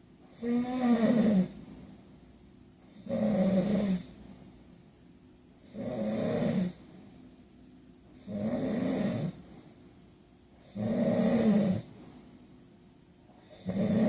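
A man snoring in his sleep: six low-pitched snores about every two and a half seconds, each lasting about a second, with quiet breathing gaps between them.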